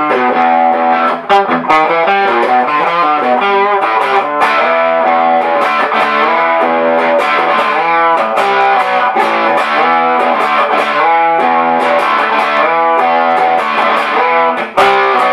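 Gibson Tribute 60s electric guitar on its bridge pickup, played through a small single-ended 12AX7/12AU7 tube amplifier with a Fender reverb output transformer into a 12-inch Celestion Greenback speaker: a steady run of quickly changing notes.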